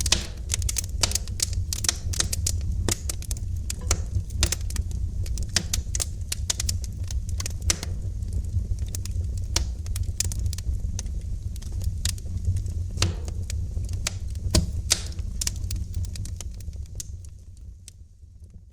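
Wood fire in a fireplace crackling and popping, with irregular sharp snaps over a steady low rumble. The sound fades out near the end.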